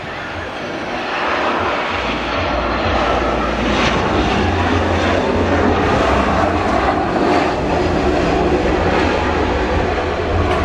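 Airbus A320-family jet airliner landing and rolling out on the runway, its jet engines loud and steady. The noise swells about a second in, with a low rumble underneath.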